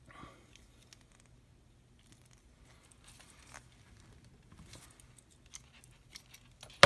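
Faint handling noises of stainless steel cable and a metal crimp being worked by hand, with small scattered ticks, then one sharp loud click near the end.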